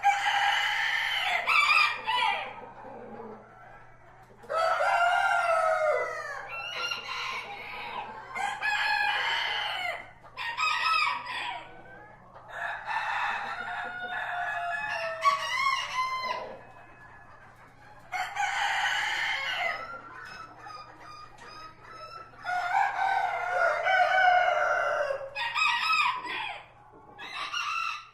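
Several roosters crowing in turn, about ten long cock-a-doodle-doo calls a few seconds apart, some overlapping.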